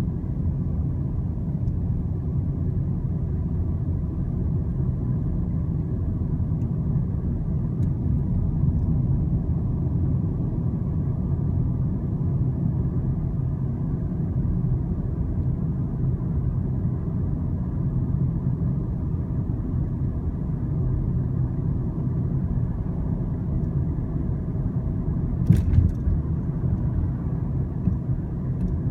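Steady low rumble, with one sharp click or knock about 25 seconds in.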